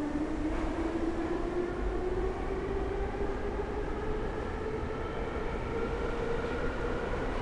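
81-717 metro car under way, heard from inside the car: the traction motors whine with a pitch that rises steadily as the train gathers speed, over the low rumble of the wheels on the rails.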